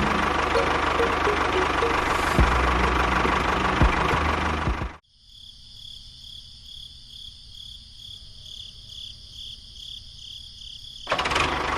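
Loud, steady running noise of a small motor that cuts off abruptly about five seconds in. A much quieter stretch of evenly pulsing high whine follows, and the loud running noise cuts back in near the end.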